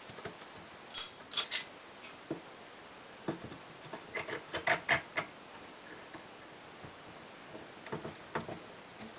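Light metal clinks and taps from a steel angle straight edge and a screw bar clamp being fitted over the countertop edge, the clamp then screwed down. The clicks come in small groups, the loudest about a second and a half in and again around five seconds in.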